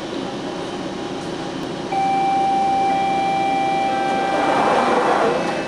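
Steady ventilation hum inside a Scarborough RT ICTS rapid-transit car. About two seconds in, a steady electronic door-closing warning tone starts and holds for over three seconds, with a rushing noise building near the end as the doors get ready to close.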